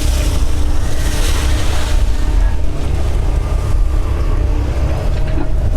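Doosan DX140 excavator's diesel engine running with a steady low drone, with a rushing noise over it in the first two seconds.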